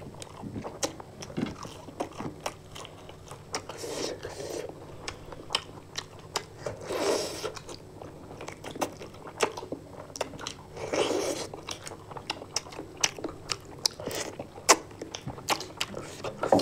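Close-miked eating of spicy fried chicken by two people: chewing and biting with many short, sharp mouth clicks, and two louder, longer crunching stretches about seven and eleven seconds in.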